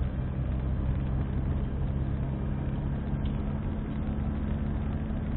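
Car driving at a steady speed on asphalt, heard from inside the cabin: an even engine hum with tyre and road noise.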